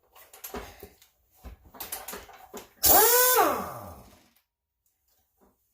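A few light metallic knocks, then about three seconds in a brief loud burst from a power impact wrench on the 36 mm front axle nut, its motor whine falling in pitch as the trigger is released.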